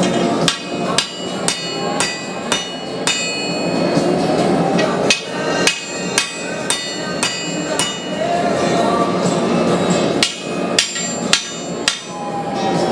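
Hammer blows on hot drill-rod steel against an anvil, straightening the bar, with a ringing tone after each strike, about two blows a second in three runs with short pauses between. A steady roar sits underneath.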